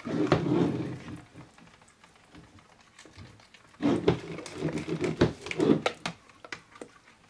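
Switched-off stick blender being stirred through thick soap batter in a plastic bucket: irregular clicks and knocks of the blender head against the bucket, with wet sloshing. A short burst comes right at the start, and a busier run of knocks and sloshing about four seconds in.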